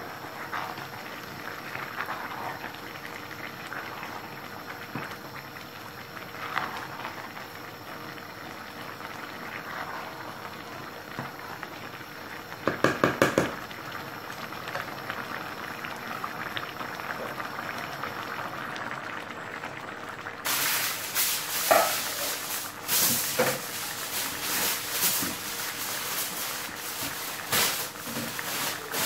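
Pot of rice and chicken stock bubbling as the water cooks off, stirred now and then with a wooden spatula, with a quick run of sharp taps about halfway through. From about two-thirds in, aluminium foil crinkling loudly.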